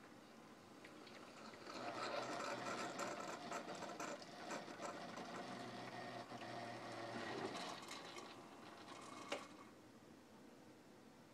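Keurig single-cup coffee brewer running on its own with no one operating it: a rapid mechanical rattle starts about two seconds in and dies down around eight seconds, then one sharp click a little after nine seconds.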